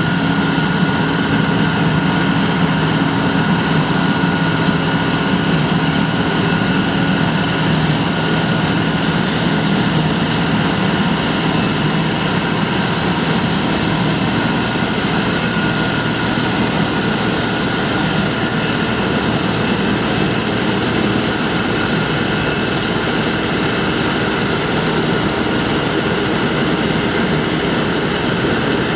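John Deere 9580 WTS combine harvester running steadily, its engine and threshing machinery a constant mechanical din, with a steady hum that fades out in the first half.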